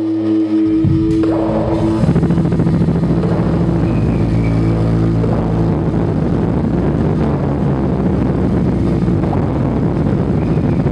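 Loud droning experimental music: a few sustained low tones, joined about a second in by a dense, rough wall of noise over a steady low drone that holds unchanged.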